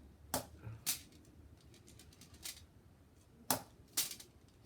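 Crosman SNR 357 CO2 air revolver firing: sharp cracks in two pairs about half a second apart, with a fainter click between them. The CO2 cartridge is running low, so the gun is losing power.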